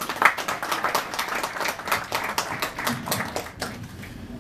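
Small audience applauding with a dense patter of hand claps that thins out and dies away near the end.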